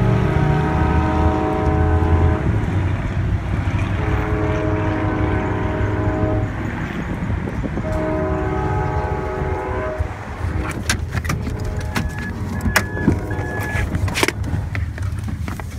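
Locomotive air horn sounding three long chord blasts over the low rumble of a passing train. The blasts are followed by a run of sharp clicks and knocks.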